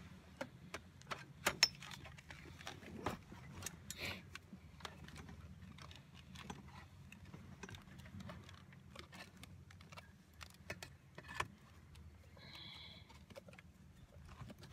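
Irregular clicks, knocks and rattles of a patio umbrella and its PVC pipe mount being handled and fitted, over a faint steady low hum.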